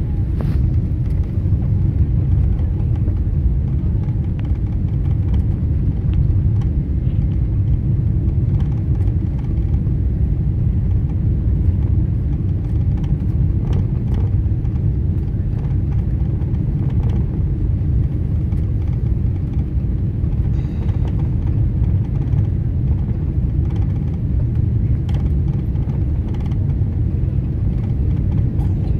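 Steady low rumble of a jet airliner's engines and rushing air, heard inside the passenger cabin on final approach to landing.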